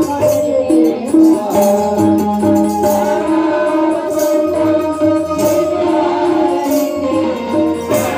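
Devotional music with a jingling, tambourine-like percussion beat over a short repeating note pattern.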